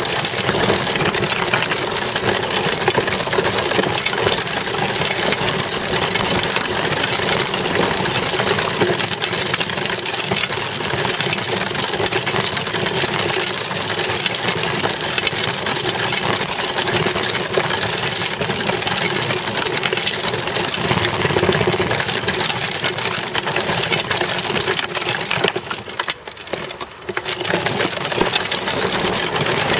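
A child's bicycle rolling over asphalt, heard from a camera mounted close to the front wheel. It makes a steady rattling buzz of tyre and frame vibration that drops away briefly near the end.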